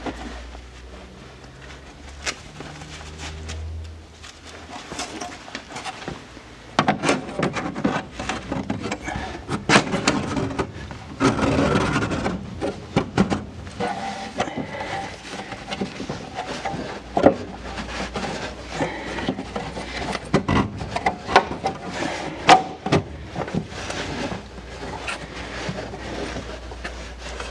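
Irregular knocks, taps and scraping of a thin sheet-metal duct panel being handled and fitted against the car's structure, busiest in the middle. A faint steady low hum runs underneath.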